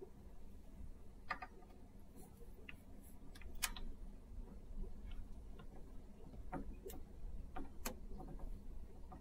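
A glass 12AX7-type preamp tube being worked into its nine-pin socket by hand: scattered light clicks and ticks of the pins and glass, heard several times, over a faint steady low hum.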